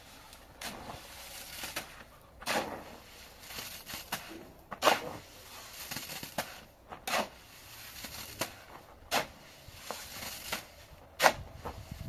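Steel shovel scraping into and scooping wet sand-and-cement mortar on bare ground, about a dozen separate scrapes and thuds at irregular spacing as the mortar is mixed and lifted by hand.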